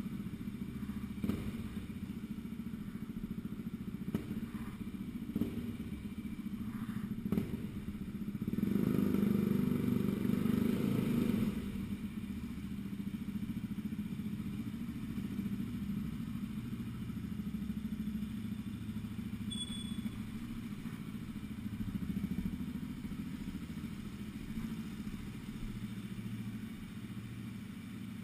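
Yamaha WR125X's single-cylinder four-stroke engine through an Arrow aftermarket exhaust, running near idle with a few sharp cracks in the first several seconds. About eight seconds in it runs louder for roughly three seconds, then settles back to a steady idle.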